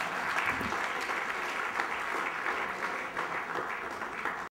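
Audience applauding, a dense steady clapping that cuts off suddenly near the end.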